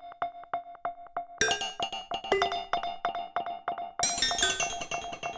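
Maschine 2.0 percussion drum synth played from the pads through a grain delay, making bizarre synthetic tones. A fast, even stutter of repeats, about six a second, rings on one tone. New bright, ringing pitched hits come in about a second and a half in, again just after two seconds, and at four seconds.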